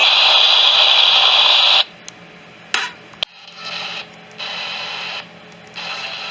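Loud radio static hiss that cuts off abruptly a little under two seconds in, followed by a few sharp clicks and stretches of fainter hiss that switch on and off.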